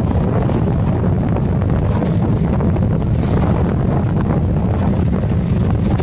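Wind buffeting the microphone: a steady low rumble with a faint hiss above it.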